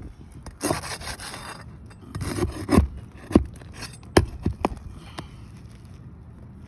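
Asphalt roof shingles scraping and rubbing as a wind-creased shingle is worked on for repair. A few sharp knocks come in the middle.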